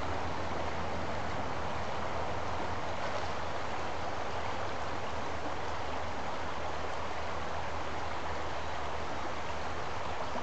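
Shallow creek water running steadily over a cobble bed, an even rushing sound, with a low steady hum underneath.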